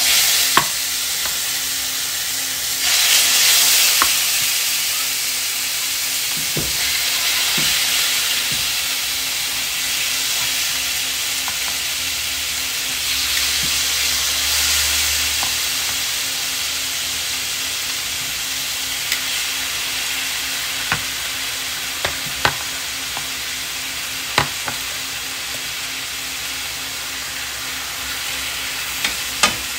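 Diced chicken breast sizzling in hot olive oil in a frying pan as pieces are dropped in and turned with tongs. The sizzle swells twice as more chicken goes in, and a few sharp clicks of the tongs on the pan come in the second half.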